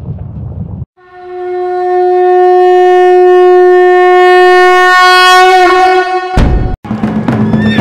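A low rumble that cuts off just under a second in, then a single long horn blast that swells up and is held on one steady note for about four seconds, wavering as it ends. A short loud burst of noise follows near the end.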